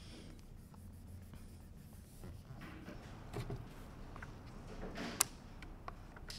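Small plastic card rubbed and pressed across a screen protector on a display screen to smooth out the film: soft scraping and handling noise with small clicks, and one sharp click about five seconds in.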